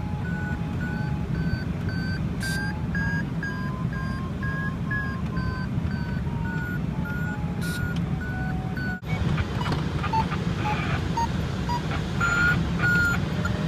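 Glider variometer beeping about three times a second, its pitch gently rising and falling, signalling that the glider is climbing in lift, over steady rushing airflow noise. After an abrupt cut about nine seconds in, the beeps go on at a different pitch with the airflow noise louder.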